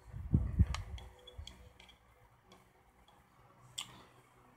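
Handling of the plastic housing of a Lyft Amp dashboard display being taken apart: two dull thumps near the start, then a few light, scattered clicks.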